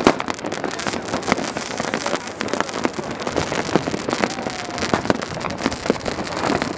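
Many fireworks going off at once across a city: a continuous crackle of bangs and pops, with sharper, louder cracks standing out every second or so.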